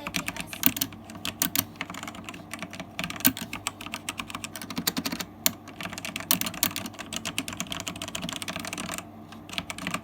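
Fast typing on a Rexus Legionare MX9 mechanical keyboard with red linear switches: a rapid, uneven run of keystroke clacks, not very clicky, with short lulls in the middle and near the end.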